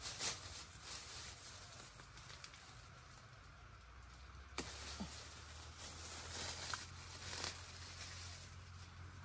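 Thin plastic bag crinkling and rustling now and then as it is wrapped and tied around a durian fruit on the branch, with a low steady hum underneath.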